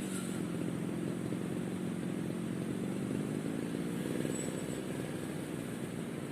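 Brush cutter engine running steadily.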